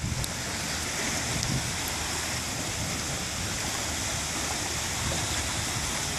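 Broken river ice and slush moving downstream along the bank in a spring breakup: a steady hiss with a few faint cracks.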